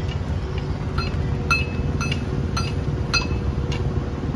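Short ringing metallic clinks, metal striking metal about twice a second, over the steady low rumble of a heavy construction machine's engine running.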